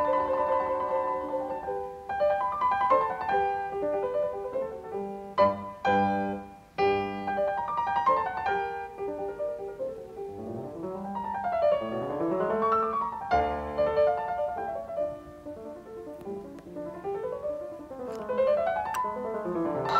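Piano music with flowing runs of notes that rise and fall.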